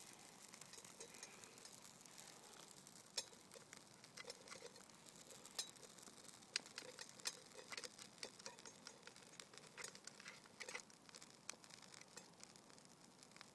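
Small birch bark fire crackling faintly under a steel cup: scattered sharp pops and ticks over a faint hiss.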